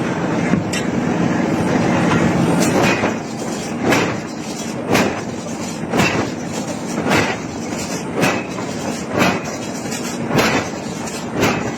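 Heavy forging hammer blows on hot iron, about one a second, over a steady machine hum that is strongest in the first few seconds.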